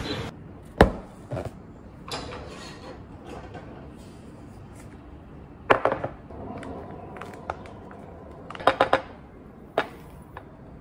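Hard objects knocked and set down on a glass tabletop: a string of separate sharp clicks and clinks, the loudest about a second in, with small clusters around six and nine seconds in.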